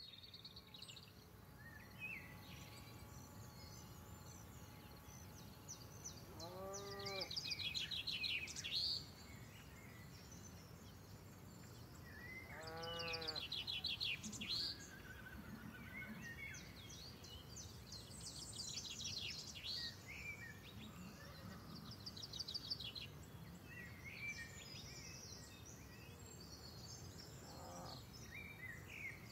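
Faint countryside ambience: small birds sing in quick high trills over a low steady outdoor hiss. Twice, a farm animal gives a long bleat of about a second, its pitch rising then falling.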